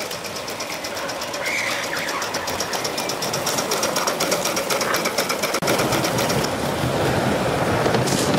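Gauge 1 live-steam model locomotive running with a fast, even chuffing exhaust beat. A little past halfway this gives way to the louder rolling rumble of a goods train's wagons passing along the track.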